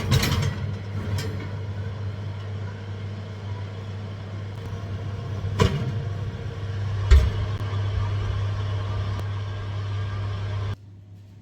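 Steady electric motor hum from a kitchen appliance, with a few sharp knocks and clicks over it. The sound starts and stops abruptly.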